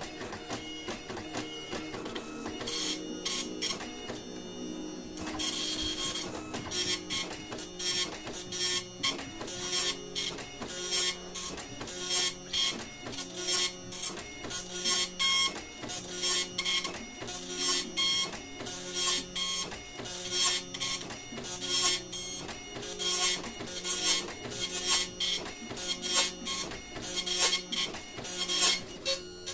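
Epson LQ-630 24-pin dot matrix printer printing a page. The print head buzzes in short rhythmic bursts, roughly one to two a second, as the carriage sweeps along each line and the paper advances. The first few seconds are steadier before the line-by-line rhythm sets in.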